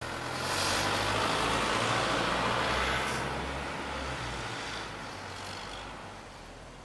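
Small bus driving off, its engine loud at first and then fading steadily as it moves away.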